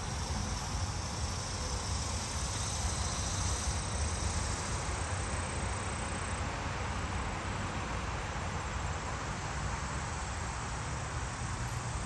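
Outdoor ambience of insects calling in a steady high drone that fades about halfway through, over a constant low rumble.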